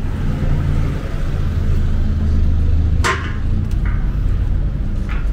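Street traffic with a nearby motor vehicle's engine running in a steady low hum. A brief sharp noise cuts through about three seconds in.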